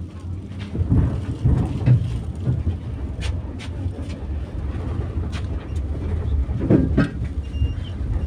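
Tram in motion on street rails, heard from inside the car: a steady low rumble from the running gear, with louder surges and several sharp clicks and knocks from the wheels on the track.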